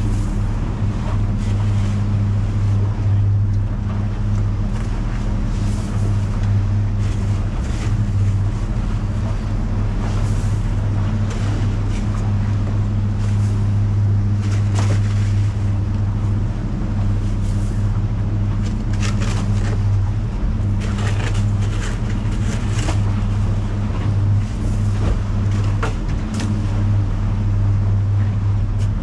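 Boat engine running steadily at an even pitch while the boat is under way, with wind on the microphone and occasional short sharp noises over it.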